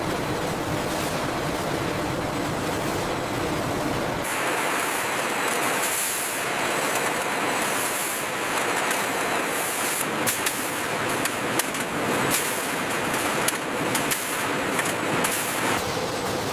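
Production-line machinery running with a steady mechanical din. About four seconds in, the low rumble drops away and repeated hissing bursts and sharp clicks take over.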